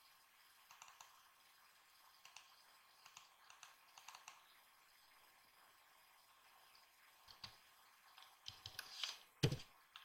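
Faint computer mouse clicks and keyboard key presses, scattered through the first few seconds and then a quicker run near the end, with one louder knock just before the end.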